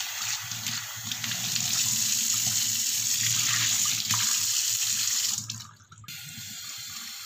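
Kitchen tap running into a stainless-steel sink, the stream splashing over hands and a steel bowl as salted fish is rinsed. The running water stops abruptly about five and a half seconds in.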